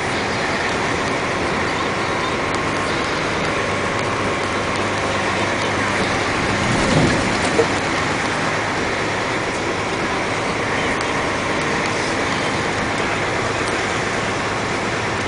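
Dump truck driving at a steady pace, its engine running with tyre and road noise throughout. About seven seconds in there is a brief thump, then a sharp knock.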